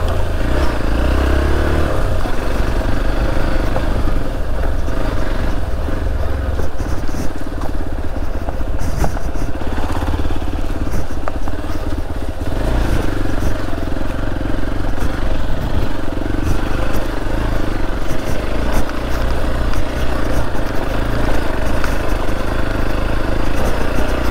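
Hero Xpulse 200's single-cylinder engine running as the motorcycle rides over a rough, rocky off-road trail, with frequent knocks and clatter from the bike bouncing over the ground.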